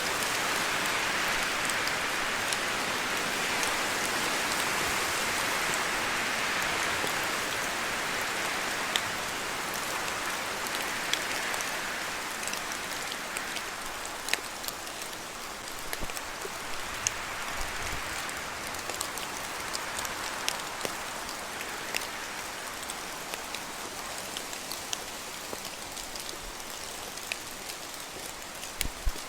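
Rain falling in a spruce forest, with wind rushing through the trees. The rush is stronger for the first twelve seconds or so, then eases. Scattered drops tick sharply throughout.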